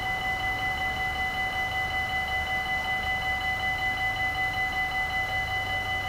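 Dutch level crossing bells ringing continuously in a fast, even ding-ding-ding of about four strikes a second while the crossing is closed. A low rumble sits underneath.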